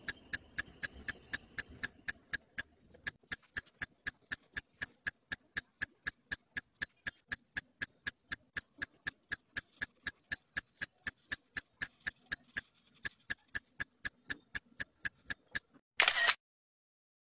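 A sharp, identical click repeating evenly about four times a second, like a mechanical ticking or shutter-click sound effect. It stops shortly before the end, and one short loud burst follows.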